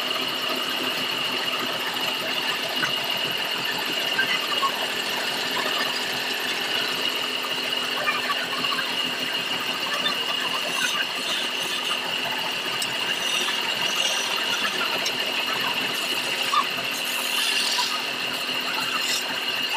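Wood lathe running with a steady high whine. From about ten seconds in, a chisel scrapes against the spinning wooden workpiece.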